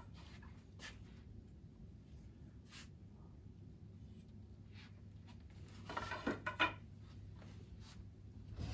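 Faint rubbing and handling sounds of hands on a wooden stick and shuffling movement, over a steady low room hum, with a brief squeak about six seconds in.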